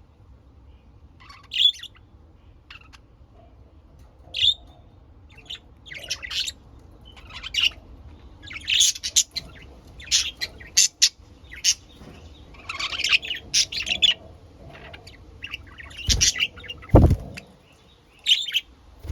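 Pet budgerigars chirping and chattering in short, irregular high calls. A brief low bump near the end.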